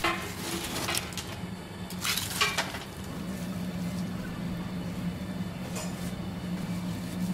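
Bay leaves and dried herb slices scooped by hand from a stainless steel tray into a cloth spice bag, with short rustles and clinks against the metal, the busiest about two seconds in; then the bag is swished into a large pot of water. A steady low hum runs underneath.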